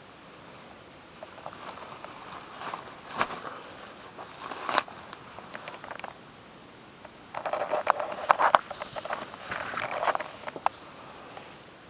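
Rustling and crackling handling noise from a rubber-gloved hand moving a pummelo in its plastic mesh bag against a plastic ruler, with a few sharp clicks. One stretch runs from about a second and a half in to about five seconds, and a louder one from about seven and a half to ten and a half seconds.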